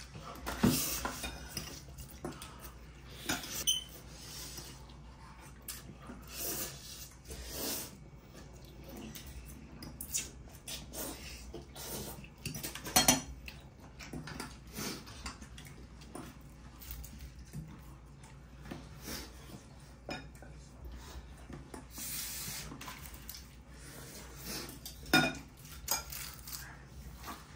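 Spoons and forks clinking and scraping on ceramic plates and bowls as people eat, in irregular clinks with the sharpest one about halfway through.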